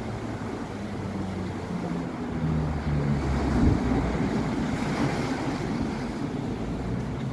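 Sea waves breaking at the end of a slipway and washing up over gravel, with wind rumbling on the microphone. The loudest surge comes about halfway through.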